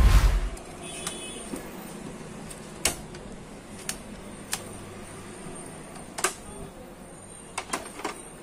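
A thump right at the start, then scattered sharp plastic clicks and snaps, about eight in all, from the print heads being seated in the carriage of a Canon Pixma G-series ink tank printer and its blue print head locking cover being pressed shut.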